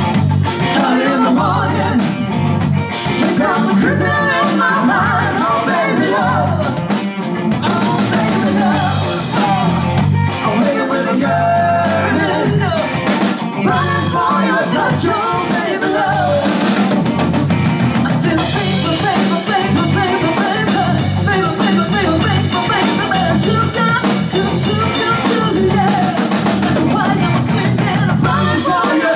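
Live rock band playing: a woman singing lead over electric guitar, electric bass and a drum kit, loud and steady.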